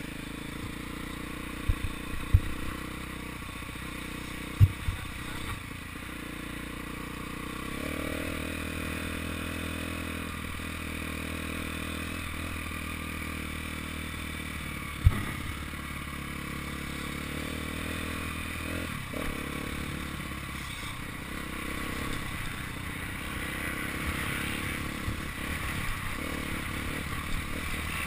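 Dirt bike engine running at low, fairly steady revs as the bike rolls along, picked up by a helmet-mounted camera. A few sharp knocks come in the first five seconds, and a loud one comes about halfway.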